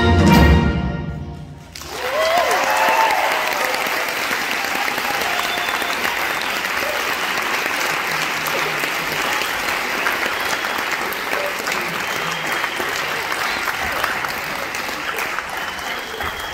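A steel band's final chord rings on the steel pans and dies away within about two seconds, then an audience applauds steadily, with a couple of cheers as the clapping begins.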